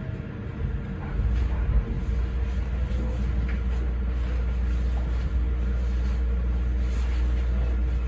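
Meitetsu 4000 series electric commuter train heard from its cab as it draws to a stop at a station platform: a steady low rumble sets in about a second in, with a faint steady hum and a few light ticks.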